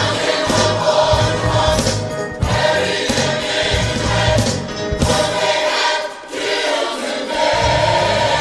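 Gospel music: a choir singing with band backing. The bass drops out briefly a little past the middle.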